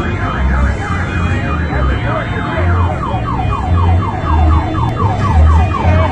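Electronic vehicle siren sounding loudly in quick pitch sweeps: up and down at first, then falling sweeps about three a second. A low bass beat pulses underneath.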